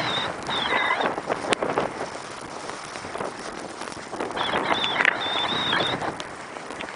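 Skis scraping and hissing over packed snow on a downhill run, swelling with each turn. A thin, wavering high squeal sounds briefly near the start and again for about two seconds in the second half.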